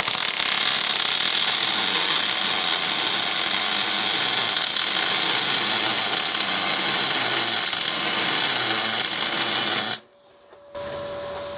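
MIG welding arc from a spool gun feeding 1 mm aluminium wire into 4 mm aluminium plate: a steady, loud hiss for about ten seconds that cuts off suddenly when the trigger is released. The settings give too much wire and not enough current, so the bead stands up on the surface and does not penetrate.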